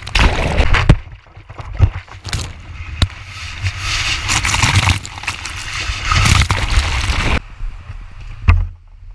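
Shallow beach wash splashing and rushing under a skimboard, heard from a camera mounted on the board, with sharp knocks from the board. The rushing cuts off sharply about seven seconds in, leaving a low rumble and a single louder knock.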